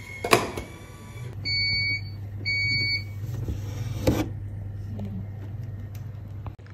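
Coffee vending machine beeping twice, each beep about half a second long, over a low steady hum. There is a sharp click just after the start, and a knock about four seconds in as the paper cup is lifted out of the dispensing bay.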